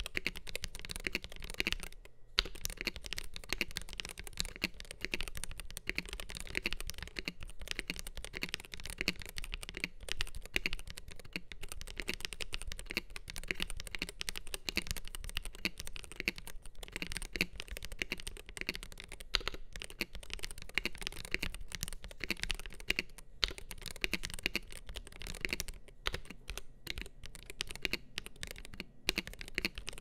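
Steady fast typing on a MelGeek Made68 Pro Hall-effect keyboard with Gateron KS-20 Magnetic White switches, aluminium plate and ABS double-shot keycaps: a dense stream of keystroke clacks, with a few short pauses now and then.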